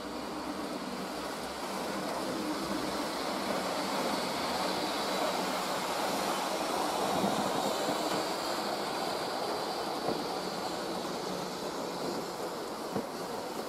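Model trains running on a model railway layout: a steady rushing whir of wheels on the rails and small motors, swelling as a train passes close by in the middle, with a light click or two near the end.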